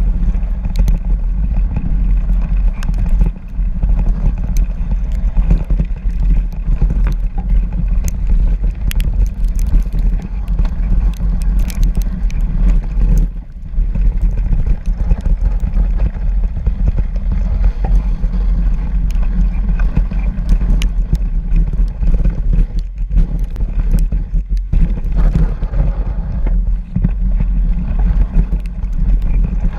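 Riding a mountain bike along a snowy trail: a continuous low rumble of wind buffeting the microphone and tyre noise, with scattered clicks and rattles from the bike. The rumble dips briefly a few times.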